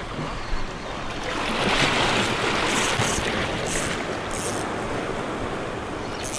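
Sea waves washing in against a rocky shoreline. A wash swells about a second and a half in and then eases off, with a few short high hisses in the middle.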